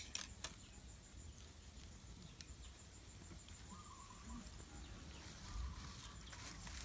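A sharp knock right at the start, followed by two lighter ones, as a hand pushes the sticks of firewood in under a steel wok. Then quiet, with a faint, high, pulsing insect trill all through.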